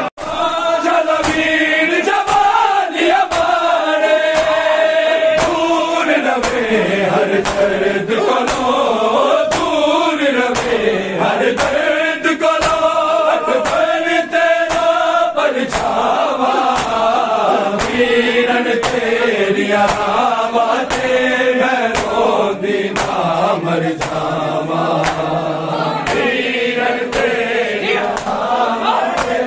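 A group of men chanting a Punjabi noha lament in unison, with the steady slap of bare-handed chest-beating (matam) keeping time, roughly one beat a second.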